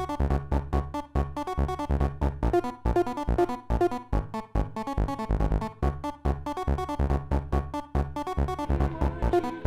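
Live electronic music played on tabletop electronic gear: a fast, repeating pattern of deep bass pulses under short synth notes, with a held low note coming in near the end.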